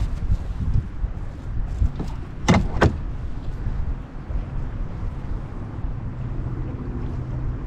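Wind buffeting the microphone in a loud, churning low rumble. Two sharp knocks come close together about two and a half seconds in, and a faint steady low hum joins near the end.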